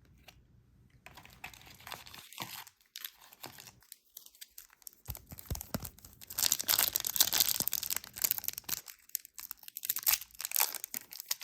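Foil wrapper of a Marvel Annual trading card pack being crinkled and torn open by hand: a dense crackling and tearing that starts about a second in and is loudest in the middle.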